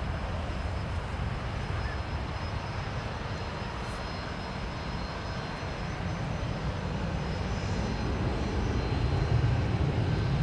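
Low, steady rumble of a departing McDonnell Douglas MD-83's Pratt & Whitney JT8D turbofan engines, growing a little louder near the end.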